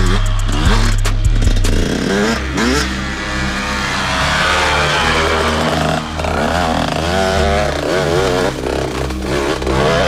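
Two-stroke dirt bike engine revving up and down repeatedly, its pitch rising and falling as the throttle is worked.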